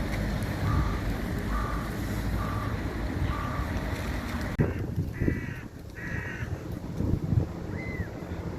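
Crows calling: four short, evenly spaced notes, then two harsh caws about a second apart and one more call near the end. Wind rumbles on the microphone throughout, with a few thumps.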